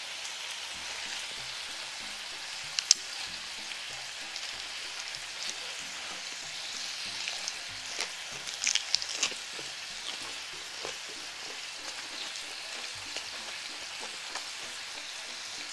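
Pork belly sizzling on a griddle pan, a steady hiss, with a few sharp clicks about three seconds in and a small cluster of them around nine seconds.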